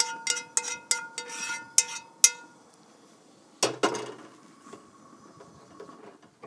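A spoon clinks and scrapes against a skillet while cream sauce is emptied onto a plate, with a quick run of sharp, ringing clinks. About three and a half seconds in there is one heavier knock as the skillet is set down on the metal grill grate, followed by faint scraping.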